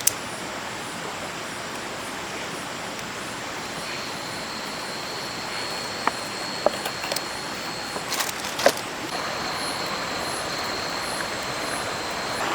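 Steady rush of a flowing river. A thin, high steady tone joins about four seconds in, and a few short clicks and knocks come around the middle.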